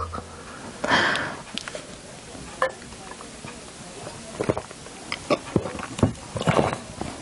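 People sipping from glasses after a toast, then setting the glasses down on a table with several light clicks and knocks near the end; a short noisy burst about a second in is the loudest moment.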